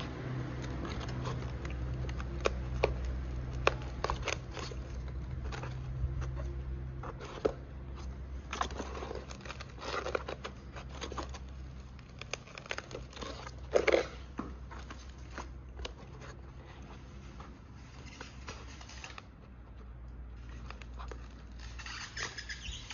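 Hands handling parts inside a foam drone fuselage: scattered clicks and short rustling scrapes of plastic, foam and a hook-and-loop strap. The loudest scrape comes about 14 seconds in, over a steady low hum.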